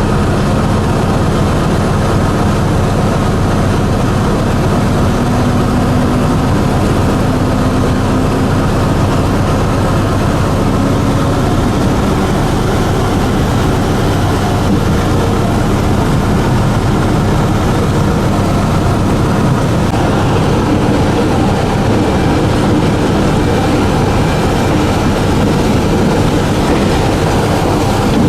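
Diesel-electric locomotive running steadily, heard from the driver's cab: a low engine hum over the rumble of wheels on the rails.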